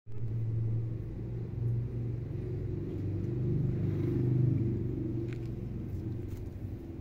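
A low, steady engine-like rumble with a strong hum, swelling slightly about four seconds in.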